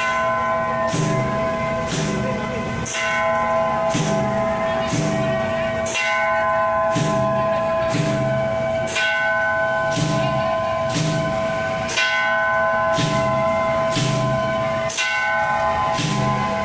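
Ringing metal percussion struck in a steady beat of about one stroke a second, each stroke ringing on into the next, with a lower sound repeating on each beat.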